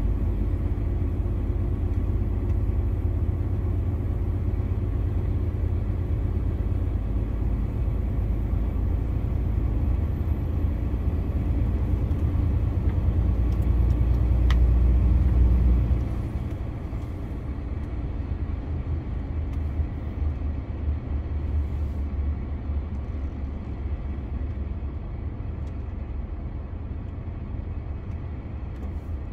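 A DAF CF 480 lorry's PACCAR MX-13 diesel engine and road noise while driving: a steady low rumble that builds for a few seconds, then drops suddenly about halfway through and runs on quieter. A single click comes just before the drop.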